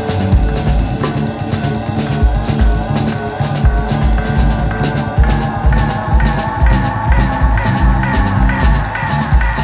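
Live band playing: guitar, bass guitar and drum kit with a steady beat, and a held melody line that steps higher about halfway through.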